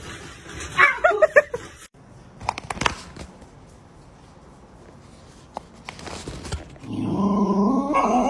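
Dog whimpering and yipping: short high cries about a second in, a few knocks, then a longer wavering whine near the end.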